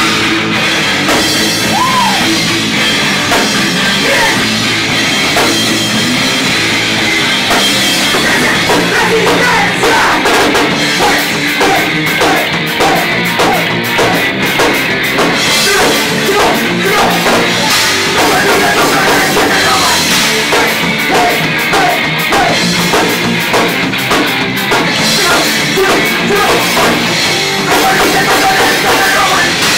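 Heavy metal band playing loud and fast: electric guitars, bass guitar and drum kit.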